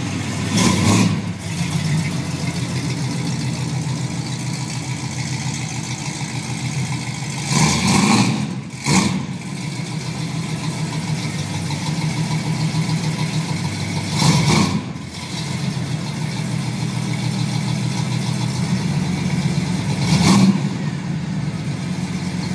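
Chevrolet Chevelle SS's big-block 454 V8 idling steadily, blipped about five times in short revs.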